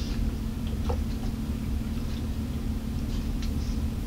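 A person drinking from a plastic water bottle, with a few faint swallows and small bottle clicks over a steady low hum.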